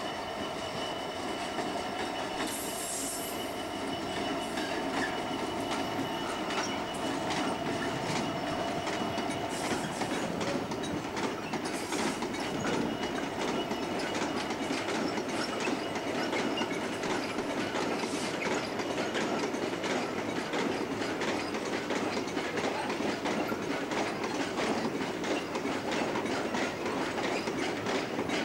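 An EWS Class 66 diesel freight locomotive passing with a train of open box wagons. Its two-stroke diesel engine's steady drone fades over the first several seconds, giving way to the wagons' wheels clattering over the track, with a few brief high wheel squeals.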